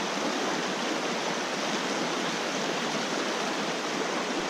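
Shallow mountain creek rushing over rocks in a riffle: a steady, even wash of running water.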